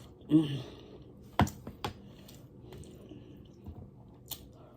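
Close-miked eating sounds: a short vocal sound just after the start, then a sharp click about a second and a half in, a few smaller clicks shortly after and one more near the end.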